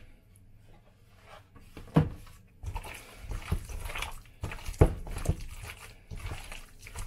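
Hands squeezing and turning marinated chicken pieces in a stainless steel bowl: wet squelching with irregular thumps, the sharpest about two and five seconds in.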